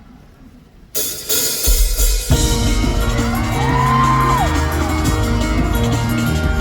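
Live rock band launching into a song. After about a second of low sound the instruments come in suddenly, bass and drums join about a second later, and the full band plays on loud and steady.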